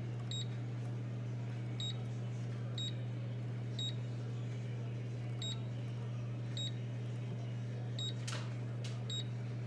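Pampered Chef cooking blender's control panel beeping as its selection dial is turned through the programs: about eight short, high beeps at uneven intervals roughly a second apart, over a steady low hum.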